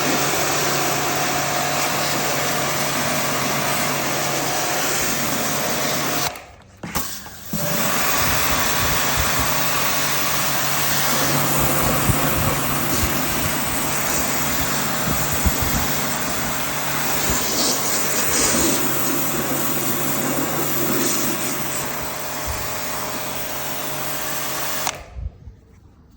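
Electric pressure washer running, its motor humming under the steady hiss of the water jet as it washes out a window AC's condenser that is clogged with dirt. It cuts out for about a second some six seconds in, then runs on and stops shortly before the end.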